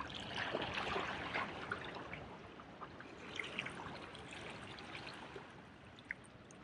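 Small waves washing and splashing against jetty rocks, a crackling wash that swells in the first couple of seconds and then eases.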